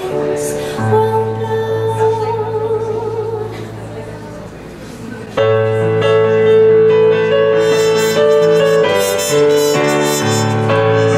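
A small live band playing: keyboard chords under a wavering held note that thins out around four seconds in, then the band comes back in louder and fuller about five seconds in, with trumpet over the keyboard.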